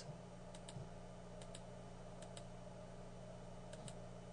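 Computer mouse button clicking faintly while faces are circle-selected, in quick pairs about four times, over a steady low hum.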